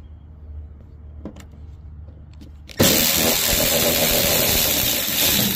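A cordless power ratchet starts suddenly about three seconds in and runs steadily and loudly with its motor buzzing, spinning a deep 10 mm socket on an extension to back out a headlight mounting nut.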